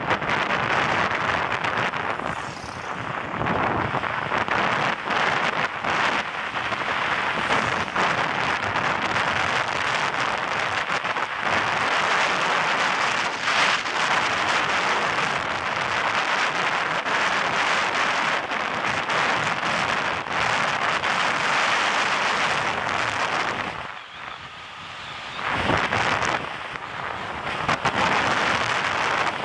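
Steady rushing wind noise buffeting the microphone of a camera on a moving bicycle, along with the bike rolling on asphalt. It drops away for a moment near the end.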